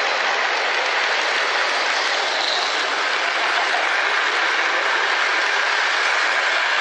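Model freight train rolling past close by on metal track, its wheels giving a steady rolling rattle.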